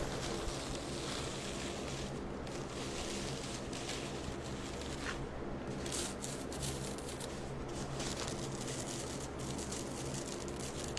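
Soft rustling of a thin paper napkin as its printed ply is peeled apart by hand, over a steady low electrical hum.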